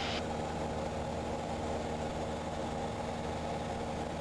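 Cessna 172's piston engine and propeller droning steadily in flight, heard in the cabin.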